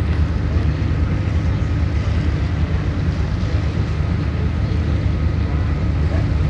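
Boat engine running steadily, a low drone with an even rush of wind and water over it.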